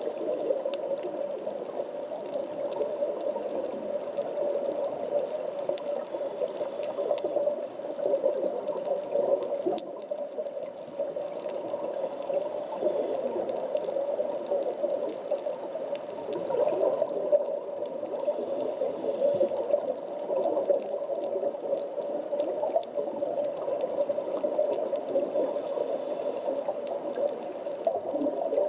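Underwater sea ambience at about 15 m depth, heard through a camera's waterproof housing: a steady wash of water noise with faint scattered ticks.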